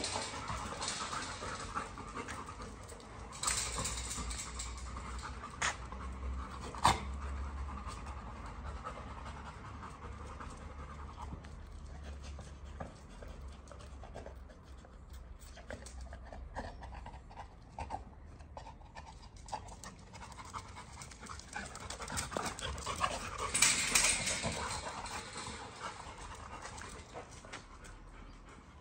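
Yellow Labrador retrievers panting during mating, a steady breathy rasp, with a few sharp clicks in the first seven seconds and a louder burst of noise about 23 seconds in.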